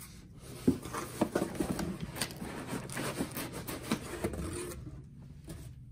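Cardboard scraping and rubbing as a boxed helmet is slid out of a cardboard shipping carton, with scattered light knocks and taps.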